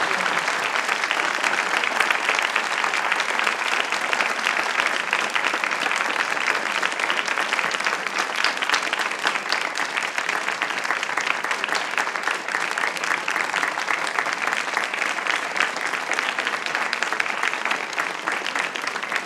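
Audience applauding: many hands clapping in a steady, unbroken stream.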